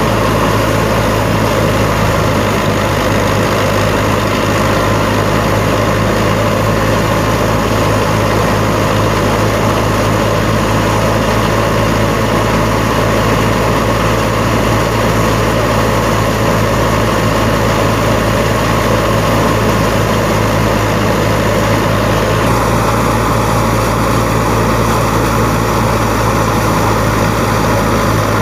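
Fiat 640 tractor's four-cylinder diesel engine running steadily under load, driving a wheat thresher through its PTO. The thresher whirs along with it, with a steady low hum.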